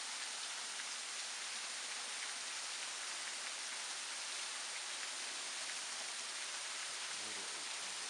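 Thin waterfall dropping about 40 feet down a ledged rock face into the mouth of a cave, its falling water splashing and pattering in a steady, even hiss.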